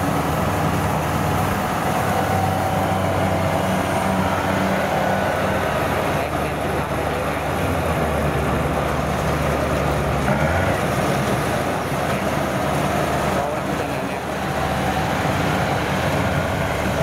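Kubota rice combine harvester running steadily under load while cutting and threshing rice, its diesel engine note shifting slightly about ten seconds in.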